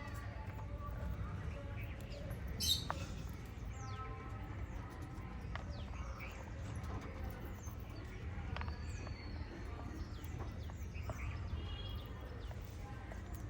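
Small pet parrots chirping and tweeting in many short calls, with one louder squawk about three seconds in, over a steady low background hum.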